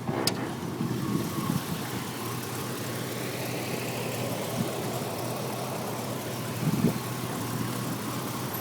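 1987 Buick Regal Turbo T's turbocharged 3.8-litre V6 idling steadily and quietly. A sharp click comes just after the start, and a couple of brief dull thumps follow.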